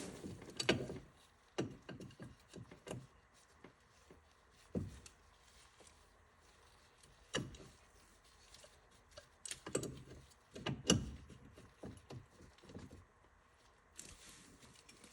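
Scattered metal clinks and knocks of two adjustable wrenches being fitted onto a car's outer tie rod and its nut, about ten short knocks spread out with quiet gaps between.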